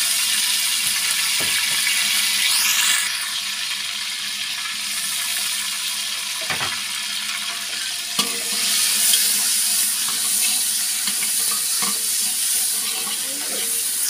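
Tomatoes and green chillies sizzling as they fry in hot oil with browned onions in an aluminium degh. A metal spatula stirring them clunks against the pot a few times.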